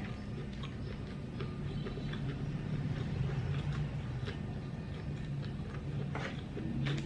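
Close-miked chewing of a fresh Vietnamese spring roll (rice paper, lettuce, shrimp): soft wet mouth clicks and smacks, with a few sharper clicks about six seconds in.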